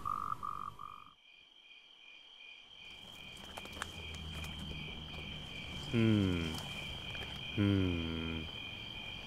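Night ambience of insects and frogs. A pulsing call cuts off about a second in, and after a short near-silent gap a steady high insect trill with a pulsing chirp fades in. Twice near the middle there is a short, loud, low call that drops in pitch and then holds.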